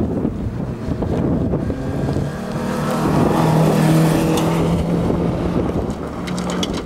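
Volkswagen Golf rally car's engine running hard at high revs as the car drives past on loose gravel, with tyre and gravel noise and wind buffeting the microphone. The engine is loudest about three to four seconds in.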